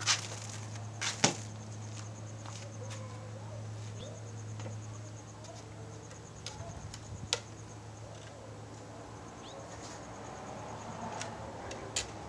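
Wooden balance board, a 2x12 plank on a 1½-inch dowel, knocking on a concrete patio as a man steps onto it and rocks: a sharp clack about a second in, then single knocks near the middle and near the end. A steady low hum runs underneath.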